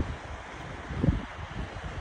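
Wind buffeting a phone's microphone in uneven low gusts, with a strong gust at the start and another about a second in, over a steady hiss of sea surf.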